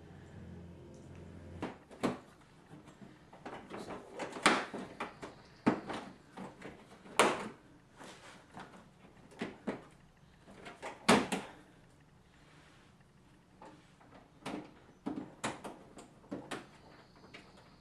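Scattered sharp clicks and knocks of plastic car trim and tools being handled, loudest about 4.5, 7 and 11 seconds in.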